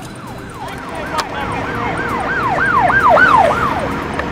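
A siren sounding in a fast yelp, its pitch sweeping up and down about three times a second. It grows louder toward three seconds in, then fades near the end.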